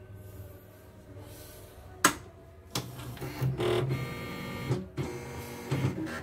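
A sharp click, then about three and a half seconds of uneven whirring in bursts from a CNY portable embroidery machine's motors as it runs through start-up. This is a power-on test of a machine sent in for repair.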